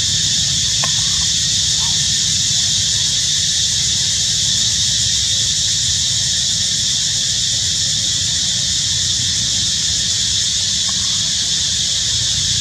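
Insects droning in one steady, unbroken high-pitched chorus, with a low steady rumble underneath.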